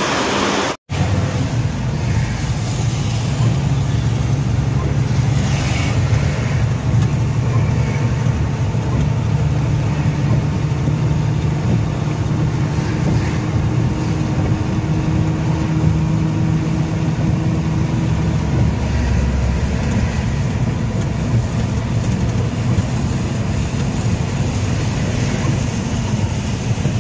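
Truck engine and road noise heard from inside the cab while driving on a wet highway: a steady low drone.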